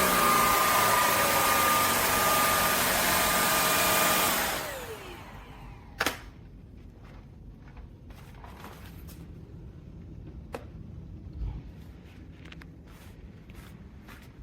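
Shark Clean & Empty vacuum motor running at full suction with a steady high whine. It shuts off about four seconds in and spins down with a falling whine. A sharp click follows about a second later, then faint small knocks.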